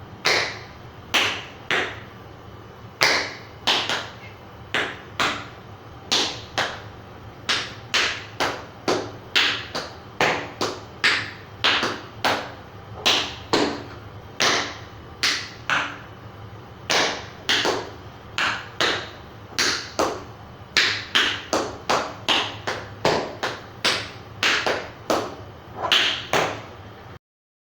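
Tap shoes' metal taps striking a hard floor in a rhythmic run of sharp clicks, some single and some in quick clusters, with no music.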